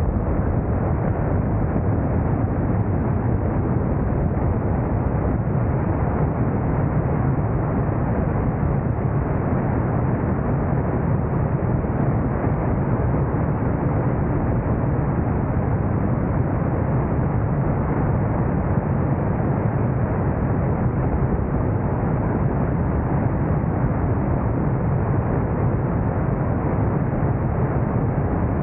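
Motorcycle riding at a steady speed: a constant, even rumble of wind, engine and road noise with no change.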